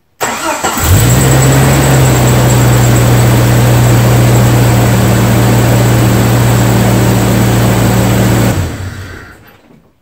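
1998 Jeep Cherokee engine cold-started: it cranks only briefly before firing, settles into a steady fast idle, and is switched off about eight and a half seconds in. The quick crank and fast catch on a cold engine that has sat for a day are taken as the result of the upgraded battery and charging cables.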